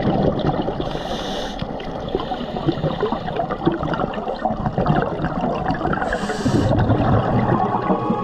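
Scuba diver breathing underwater through a Mares Rover regulator: a hiss of inhalation about a second in and again about six seconds in, with gurgling exhaust bubbles between them, over a constant underwater crackle.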